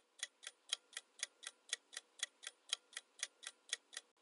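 Clock-ticking sound effect for a quiz countdown timer, evenly paced at about four ticks a second.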